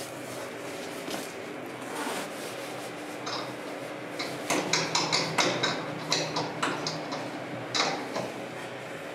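Irregular sharp knocks and clicks over a steady low machine hum. The knocks come singly at first, then in a quick run of about ten over two seconds past the middle, and once more near the end.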